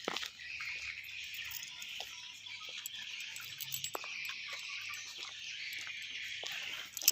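Swiftlets chirping, a dense, continuous high twittering with many short clicks scattered through it.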